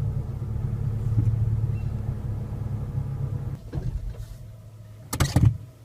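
Renault Mégane petrol engine running with a steady low drone that dies away a little over halfway through, followed by a brief loud knock or clatter near the end. The noise is put down to play in the crankshaft's main and connecting-rod bearings, worn from oil neglect or mileage.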